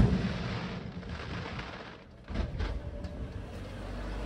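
Aerial fireworks: the rumble of shell bursts dies away, then a scatter of small pops and crackles starts about two seconds in.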